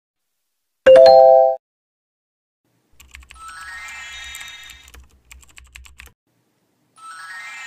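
Video sound effects: a loud bell-like ding about a second in, as from a subscribe-button bell animation, then a rising shimmering sweep with light clicks that starts again near the end.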